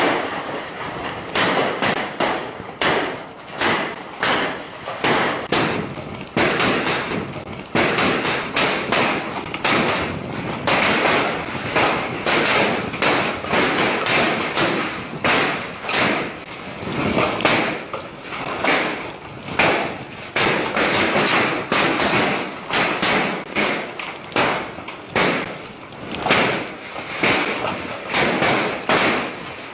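Heavy hail pelting down: a dense, unbroken clatter of hard impacts, swelling and easing in waves about every second.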